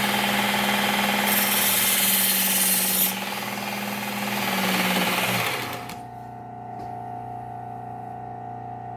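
Work Sharp Ken Onion Elite belt sharpener running, with the steel mower blade held against the abrasive belt, a brighter hissing grind from about one to three seconds in. About five seconds in the motor drops in pitch and winds down, leaving a quieter steady hum.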